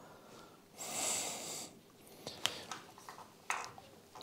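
A short, hissy breath out through the nose about a second in, then a few light clicks and scrapes of a wire being worked through a motorcycle's frame.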